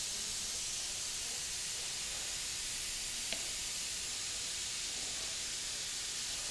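Steady high-pitched hiss with a single faint click about three seconds in.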